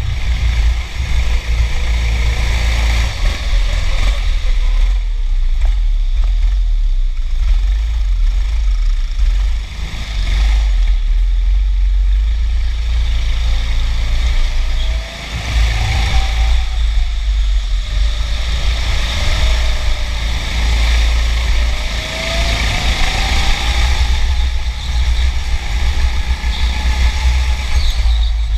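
Go-kart running flat out, heard from the driver's seat: a loud, steady low rumble of wind and vibration on the camera, with the kart's motor pitch rising and falling several times in the second half.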